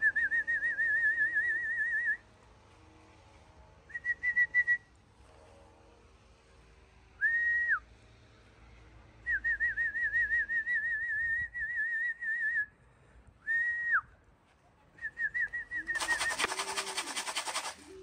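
Trilled whistle calls of the kind used to bring racing pigeons down to the loft, in repeated warbling phrases with pauses between. One phrase is a single held note that drops away at its end. Near the end a loud burst of rattling noise lasts about two seconds.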